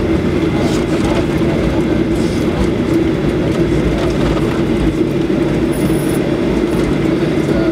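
Cabin noise of a Boeing 737-800 rolling out on the runway after landing: steady engine noise with a constant tone over the low rumble of the wheels on the pavement.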